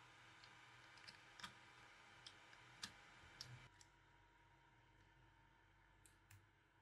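Near silence with faint, sharp clicks and taps of small tools and phone parts being handled while a phone is reassembled: about a dozen, most in the first few seconds and a couple more near the end.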